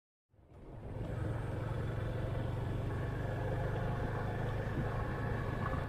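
Motorcycle engine running steadily while the bike is ridden along a road, heard from the rider's position. The sound fades in from silence in the first half-second and then holds an even, low hum.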